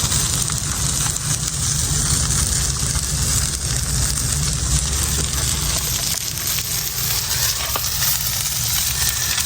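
Coho salmon sizzling as it cooks, a steady crackling hiss, over a low steady rumble.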